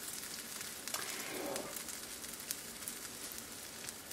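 Almond-flour pancake batter frying in hot coconut oil in a skillet: a steady sizzle with small pops and crackles now and then.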